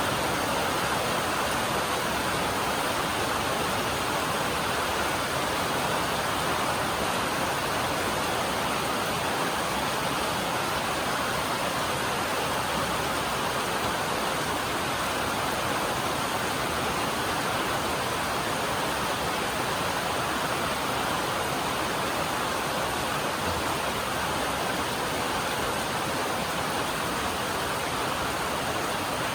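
Heavy rain falling on a metal roof: a dense, even hiss that holds steady throughout.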